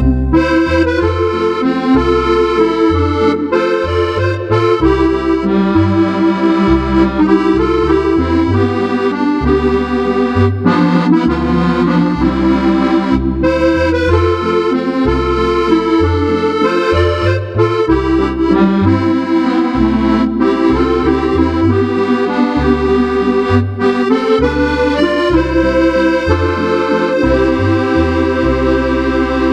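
Roland FR-8X digital accordion playing an organ-like Cordovox voice. A melody and sustained chords sound over a steady, regular pattern of bass notes.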